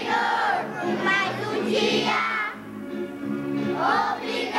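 A group of young children singing a song together in Portuguese.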